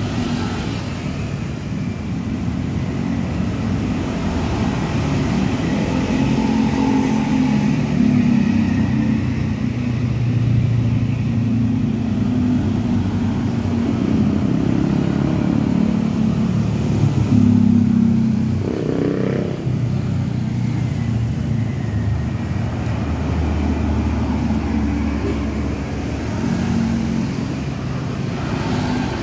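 A motor vehicle engine running, its pitch shifting, with a louder swell about two-thirds of the way through.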